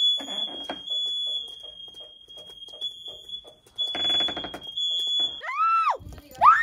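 Apartment building fire alarm sounding a steady, high-pitched tone with brief gaps. Near the end a high voice cries out twice, each cry rising and falling.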